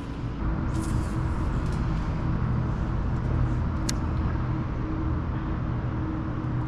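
A steady low motor hum with a few held tones, and a single sharp click about four seconds in.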